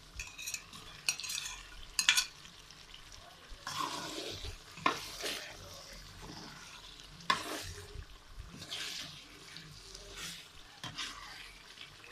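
A spatula stirring chicken pieces through masala in a metal kadai, in irregular scraping strokes with a few sharp knocks against the pan, over a faint frying sizzle.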